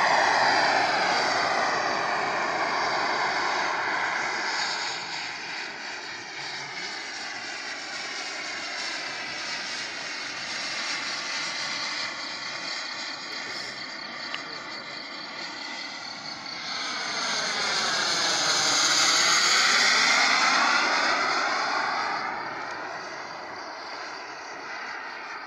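Turbine engine of a radio-controlled model jet as it flies past, loudest at the start, fading away, then swelling into a second close pass about two-thirds of the way through before fading again.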